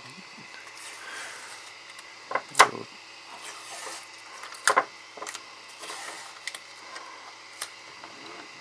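Sharp plastic cracks and clicks as a stuck 3D-printed part and its support material are pried and worked loose from the printer bed by hand. There are a handful of short snaps, the loudest a pair about two and a half seconds in and another pair about halfway through, with smaller clicks after.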